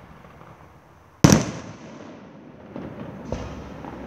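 Fireworks going off: one loud bang about a second in, trailing off in an echo, then two fainter bangs near the end.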